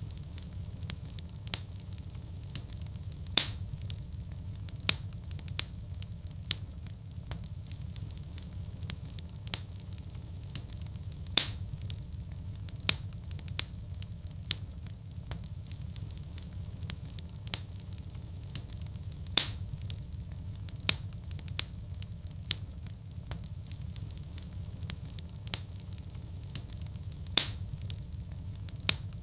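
A fire burning in a fireplace: a steady low rumble of flames with sharp crackles and pops scattered throughout, the loudest pops coming about every eight seconds.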